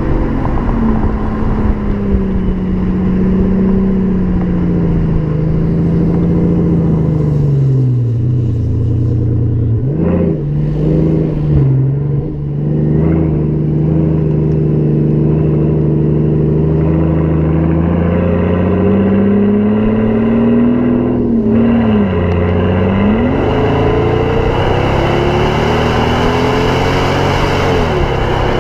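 Mercedes CL 600 twin-turbo V12 with a RENNtech tune and straight-piped exhaust, running as the throttle varies. The pitch sags and recovers, blips sharply about ten seconds in, and holds a steady drone through the middle. Over the last five seconds it climbs steadily in revs while a rising hiss builds behind it.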